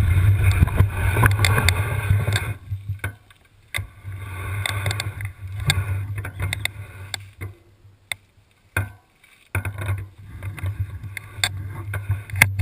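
All-terrain wheelchair rolling down a trail: a loud rumble of tyres and frame for about the first two and a half seconds, then patchier rattling broken by sharp knocks and a few brief drop-outs.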